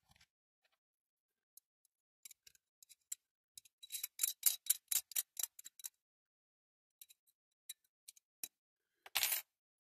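Small clicks and scrapes of a scalpel blade picking old string and grime out of the inside of a die-cast metal toy crane body. A quick run of clicks comes in the middle, then a few scattered ticks and a brief louder rasp near the end.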